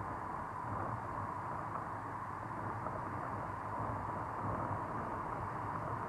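Surf from a choppy sea washing onto a sandy beach: a steady, even rush of noise with a low rumble, with no single crash standing out.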